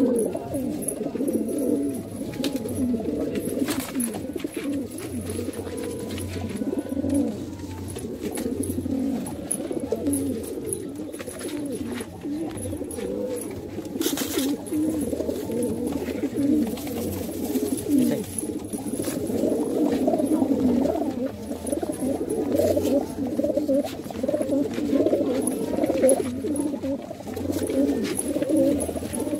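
Domestic pigeons cooing continuously, several low coos overlapping without a break.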